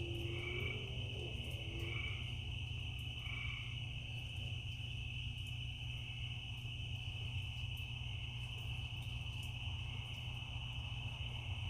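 Night chorus of crickets and frogs: a continuous high insect trill over a steady low hum. In the first few seconds a call repeats about every second and a half, and a low warbling call sounds near the start.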